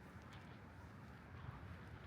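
Quiet outdoor city ambience: a low, steady distant traffic hum with a few faint footstep-like clicks.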